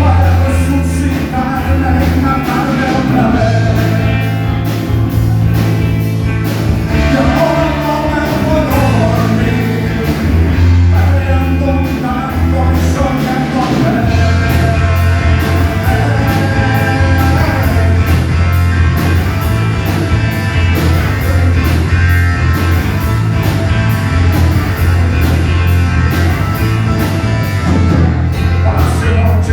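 Rock band playing live with a lead singer, with guitar, bass and drums.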